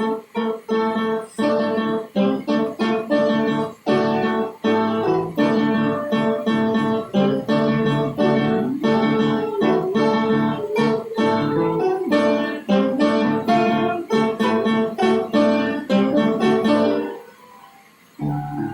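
Piano played in a run of quick, overlapping notes that ring on. The notes fade out about seventeen seconds in, and another pitched sound starts just before the end.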